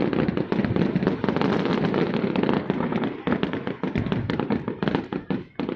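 Fireworks display: a dense, continuous run of crackling and popping bursts, easing off briefly just before the end.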